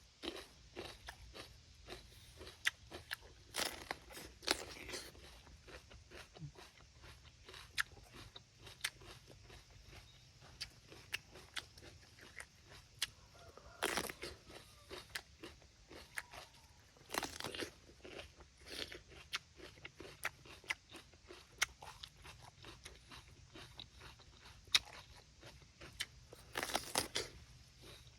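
Someone biting into and chewing raw sweet pepper (bell pepper), a crisp wet crunching of many small cracks. A few louder bites stand out now and then.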